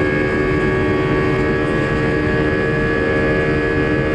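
Airbus A320 turbofan engine under climb power, heard from inside the cabin just after takeoff: a steady loud rumble with several steady tones held over it.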